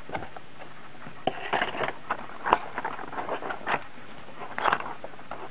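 Clear plastic clamshell packaging being handled and opened: irregular crinkles and clicks, the sharpest a snap about two and a half seconds in.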